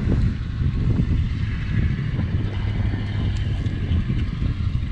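Wind buffeting the microphone: a loud, uneven low rumble.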